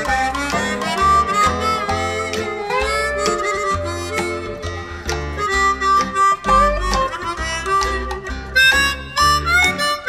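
Acoustic instrumental music played back through KEF LS50 bookshelf speakers driven by tube amplifiers. A lead melody with bent, wavering notes runs over plucked strings and a steady bass line.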